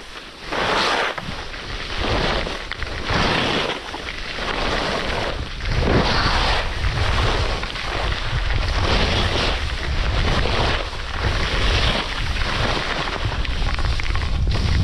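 Skis scraping over icy, hard-packed snow through a run of turns: a hissing scrape every second or two, over a steady low rumble of wind on the microphone.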